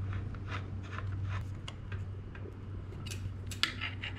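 Light, irregular metal clicks and ticks of a flat pedal being threaded into a mountain bike crank arm, over a steady low hum.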